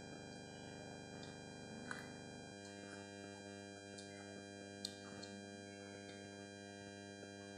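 Soft, steady synthesizer-like background music held as an unchanging drone, with two faint sharp clicks from eating, one about two seconds in and one about five seconds in.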